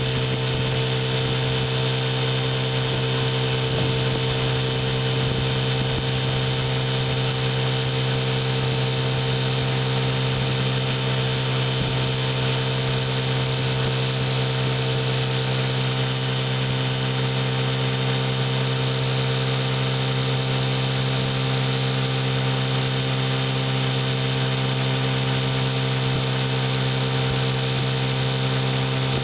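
1961 Johnson 5.5 hp two-cylinder two-stroke outboard motor running steadily under way at speed, its pitch holding level throughout. The motor is freshly overhauled, with a rebuilt gear case and all-new ignition and fuel system.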